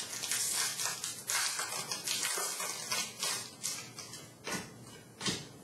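Hockey trading cards slid one over another by hand as a pack is flipped through: an irregular run of short papery swishes, a few louder near the end.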